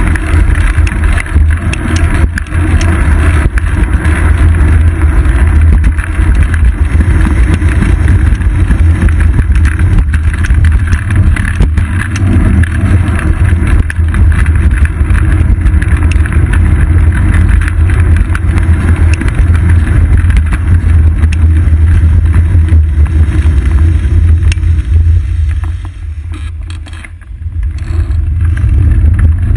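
Wind buffeting and road rumble on a bicycle's seat-post-mounted GoPro while riding: a loud, steady low rumble with hiss above it. It eases off briefly near the end, then returns.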